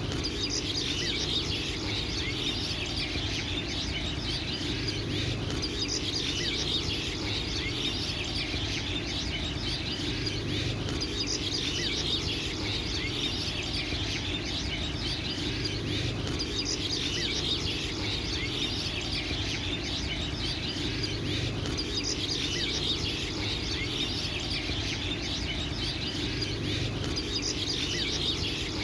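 Many small birds chirping and twittering together without a break, over a low steady background that swells and fades about every five seconds.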